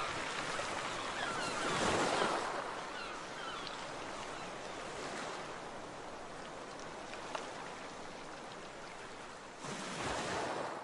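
Ocean waves washing on a shore, one wave swelling to a peak about two seconds in and another surging near the end. A few faint seagull calls sound in the first few seconds.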